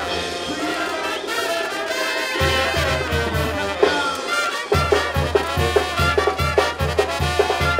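Mexican banda music: brass carrying the melody over a deep bass. The bass holds long notes at first, then bounces on the beat about twice a second from around five seconds in.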